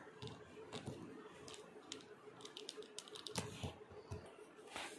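Small plastic toy pieces being handled by fingers: irregular light clicks and taps, with a louder tap about three and a half seconds in and another near the end.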